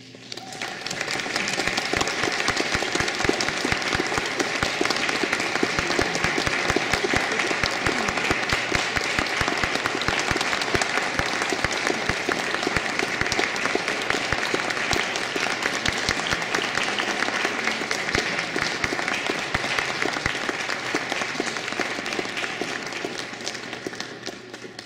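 Audience applauding, a dense steady clapping that swells up within the first second and fades away near the end.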